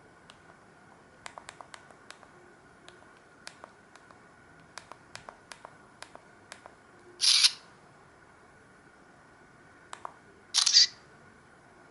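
Keys of a Samsung SGH-D780 mobile phone clicking in irregular runs as its menus are stepped through. Two louder short hissing bursts come about halfway through and again near the end.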